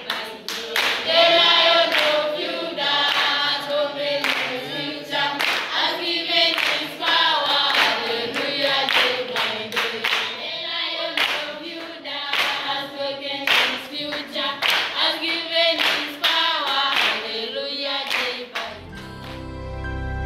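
A group of secondary-school students singing together unaccompanied, with hand claps keeping a steady beat about one and a half times a second. Near the end the singing stops and soft instrumental music begins.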